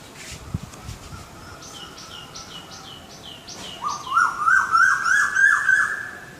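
Bird calling: a run of short high falling notes, then a loud rapid series of rising whistled notes, about four a second, that climbs in pitch before stopping abruptly.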